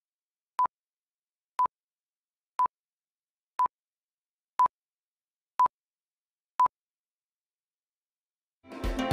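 Countdown leader beep: a short steady beep once a second, seven times, each on the same pitch, marking the numbers counting down. Music comes in near the end after a second or two of silence.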